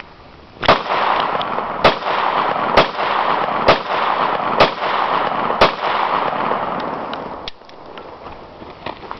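Kel-Tec PF9 9mm pistol fired six times in steady succession, about one shot a second, with a loud hiss beneath the shots that cuts off a couple of seconds after the last one.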